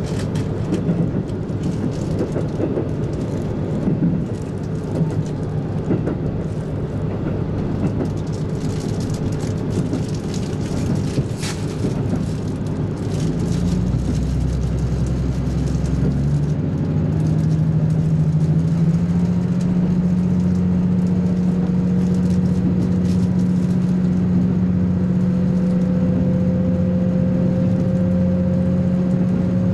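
Diesel train running, heard from inside the carriage: a steady rumbling drone with a few light clicks. From about halfway a steadier engine hum takes over, with a tone that slowly rises in pitch as the train picks up speed.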